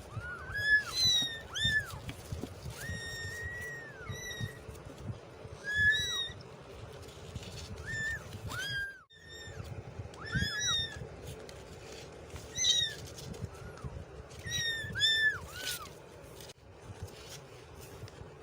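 Kittens meowing over and over: short, high-pitched calls that rise and fall, a second or two apart, sometimes two close together.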